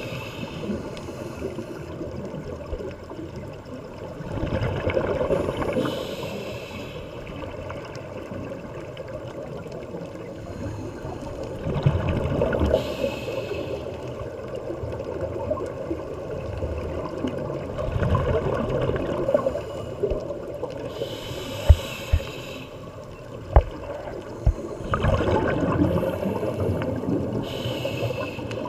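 Scuba diver breathing through a regulator underwater, heard through a camera housing. Slow cycles about every seven seconds of a hissing inhale and a gurgling surge of exhaled bubbles, with a few sharp knocks about three quarters of the way through.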